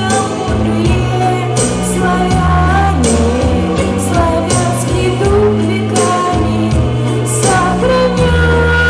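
A woman singing a song over instrumental accompaniment with steady bass notes and a regular beat.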